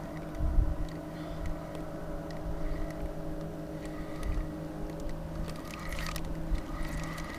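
A steady motor hum with several even tones, with a few low thumps about half a second in and small scattered clicks.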